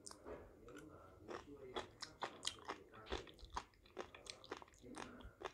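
Close chewing of rehydrated sea grapes, the small beads crunching in a quick, irregular run of crisp clicks, about three or four a second: the sea grapes are crunchy.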